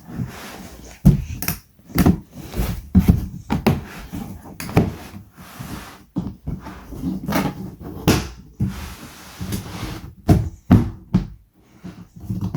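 Irregular plastic knocks, clunks and clicks as the clip-on locks of a hooded plastic cat litter box are fitted and pressed into place.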